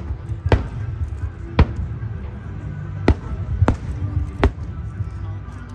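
Fireworks shells bursting overhead: about six sharp bangs at uneven intervals over a continuous low rumble.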